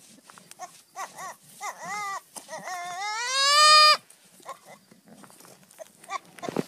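Young goat kid bleating: a quick run of short bleats, then one long bleat that rises in pitch and stops suddenly about four seconds in. A low thump comes near the end.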